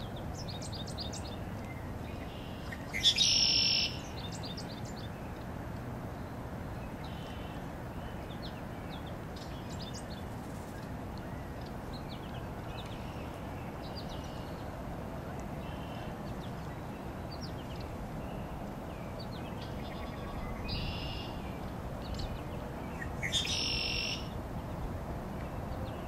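Small songbirds chirping on and off, with short high chirps throughout and two louder call phrases of about a second, one about three seconds in and one near the end, over a steady low background noise.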